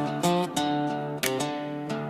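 Background music: strummed guitar chords changing every fraction of a second.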